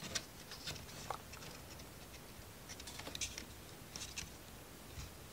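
Faint, irregular light clicks and taps of small laser-cut plywood model kit pieces being handled and fitted together.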